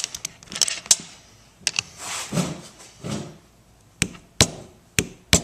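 Brake caliper parts and bolts being handled: a series of sharp separate clicks and knocks, several close together near the end, with some rustling in between.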